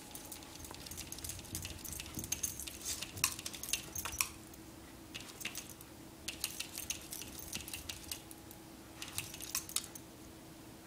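A small dog's claws scratching and tapping at a glass door in quick bouts of clicks, with pauses between the bouts. A faint steady hum sits underneath.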